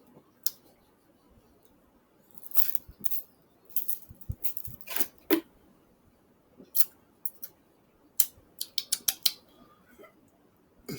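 Scattered sharp clicks and short scraping rustles, in two clusters, then a quick run of clicks near the end.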